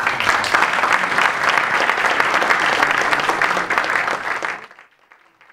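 Audience applauding, dying away suddenly about four and a half seconds in.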